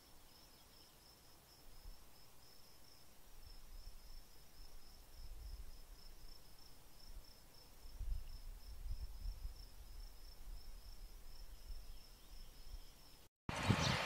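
An insect chirping steadily, a faint high-pitched chirp repeating about four times a second, over a low rumble. Near the end it cuts out for a moment, and louder outdoor noise follows.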